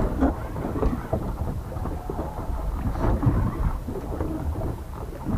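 Wind buffeting the microphone as an irregular low rumble, with water sloshing against the boat's hull.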